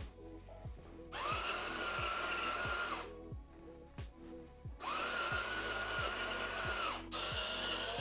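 Electric salt-and-pepper grinder whirring in three bursts of about two seconds each, the pitch rising as the motor spins up and dropping as it stops, grinding seasoning onto pork. Background music with a steady beat plays underneath.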